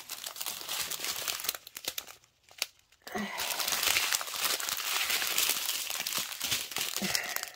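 Small clear plastic bags of square resin diamond-painting drills crinkling as they are handled and sorted, with a short lull and a single click about two seconds in.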